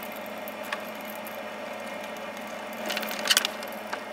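Light clicks of metal parts being handled, then a short clatter about three seconds in, as the gear pump head and its bolts are fitted loosely onto the motor. A steady low hum runs underneath.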